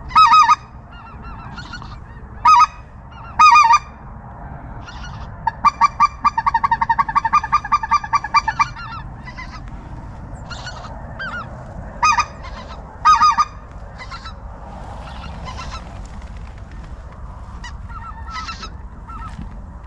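Loud honking goose calls, singly and in pairs, with a fast run of short honks for about three seconds starting about five seconds in. Fainter goose calls sound in between.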